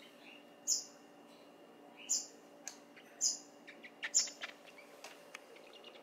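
Pet rail-like birds giving short, high chirps, four of them about a second apart, with a few light clicks mixed in around the middle.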